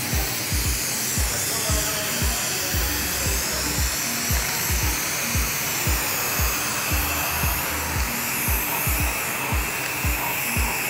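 Background music with a steady beat, over the continuous hiss of an aerosol spray can laying down a coat of white paint.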